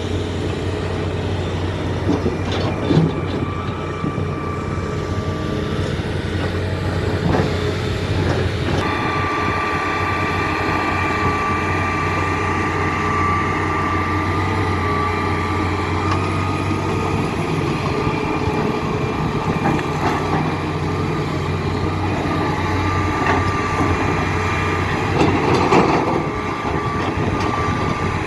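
Hitachi Zaxis 350 excavator's diesel engine running steadily while the machine works. A steady high whine joins about a third of the way in, and there are a few short knocks, the strongest near the start and near the end.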